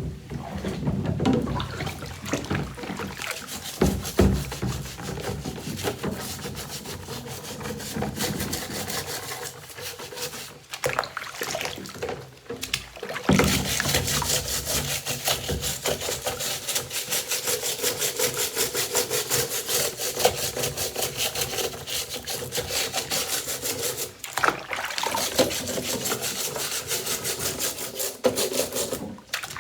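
Shark vacuum parts being scrubbed by hand during cleaning. There is irregular rubbing and handling at first. A little under halfway in, fast, steady scrubbing strokes begin. They break off briefly near the end and then start again.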